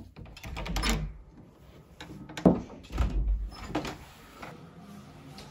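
A lever handle pressed on an interior door and the door swung open: a series of clicks and knocks from the handle and latch, the sharpest about halfway through.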